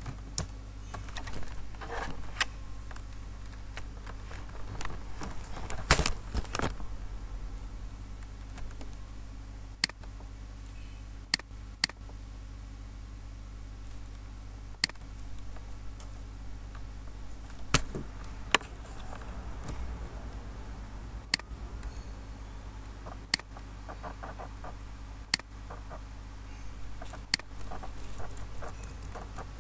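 Someone working at a computer: single sharp clicks every second or two, in the way of mouse buttons, and short runs of quicker, softer keyboard tapping, over a steady low electrical hum.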